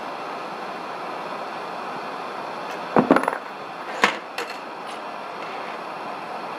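Gas torch flame of a Giraud case annealer hissing steadily. About three seconds in comes a short clatter of brass on metal, and a single sharp clink a second later, as the indexing wheel turns and .223 brass cases drop out of and into the flame position.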